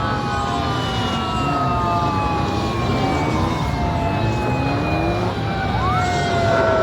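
Several police motorcycle sirens wailing at once, overlapping and out of step, each rising quickly and then falling slowly, with a fresh rise near the end, over the low rumble of motorcycle engines.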